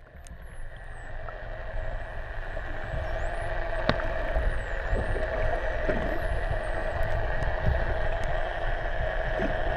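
Common dolphins whistling underwater: many thin, high calls gliding up and down in pitch, with a few sharp clicks. Underneath is a steady underwater hum and low rumble that fades in over the first couple of seconds.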